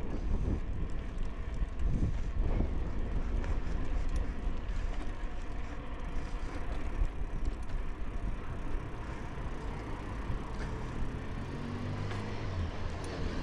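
Steady wind rush and tyre rumble while riding a Trek 3700 mountain bike along a paved cycle path. A faint low hum comes in near the end.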